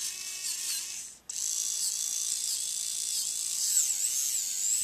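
Small battery-powered cordless screwdriver, the Warrior compact model, running with a high geared whine. It stops briefly about a second in, then runs again, its pitch wavering in the second half.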